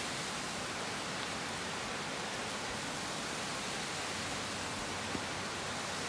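Small woodland waterfall spilling over rock ledges: a steady rush of water.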